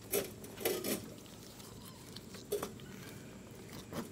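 Several short metallic clinks and knocks, most in the first second and another about two and a half seconds in: a snowblower wheel being turned and worked on its axle shaft to line up the pin holes.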